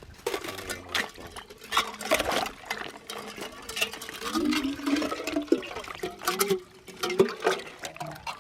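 Water splashing and sloshing with irregular knocks and scrapes.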